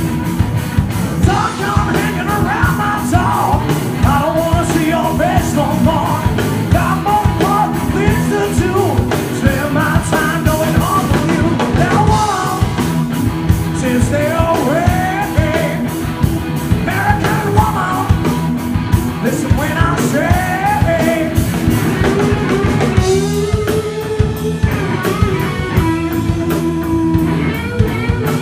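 Live rock band playing loudly, drums keeping a steady beat under guitars and a bending lead melody. The sound thins out a little about three-quarters of the way through.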